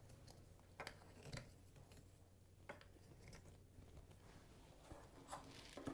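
A few faint, scattered clicks and light knocks of hard gauntlet blade pieces being handled and slotted onto a statue's forearm.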